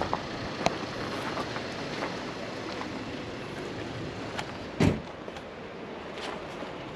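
A car running, a steady noise with a few light clicks, and one louder thump a little before five seconds in.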